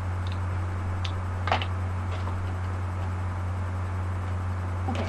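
Steady low electrical hum with hiss, and a few short soft clicks from plastic lipstick tubes being handled, the loudest about one and a half seconds in.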